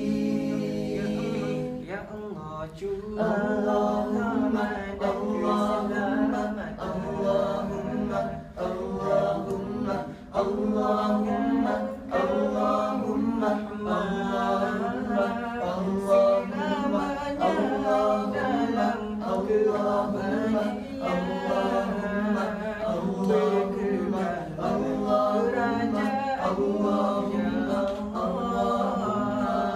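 Male vocal group singing a selawat (Islamic devotional praise of the Prophet) a cappella in harmony, with a low note held steadily beneath the moving melody.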